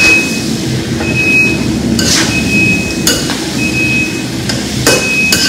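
Long metal utensil scraping and knocking against a large metal cooking pan as food is stirred and turned, roughly once a second. Each strike leaves a short high metallic ring, over a steady low hiss.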